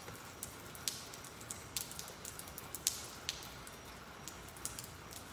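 Faint steady background hiss with scattered light ticks at irregular intervals.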